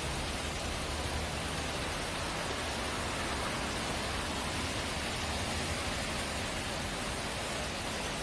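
Steady rush of a stream swollen by heavy rain: an even, unbroken hiss of fast-flowing water.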